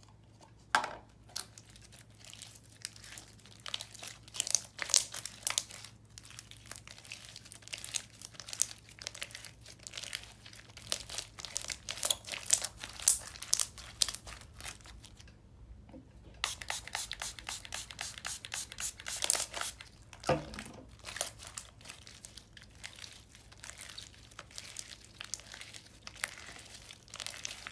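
Hands scraping, stretching and folding a soft, sticky marshmallow floam slime with small foam beads: a dense run of small wet clicks and pops.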